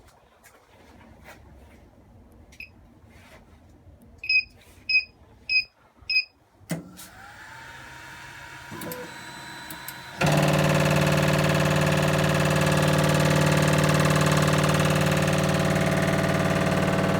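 Tiertime UP300 3D printer beeping four times, then from about ten seconds in a loud, steady electric hum. This is the noise that appeared after the parts with the bearing holding the belt were replaced.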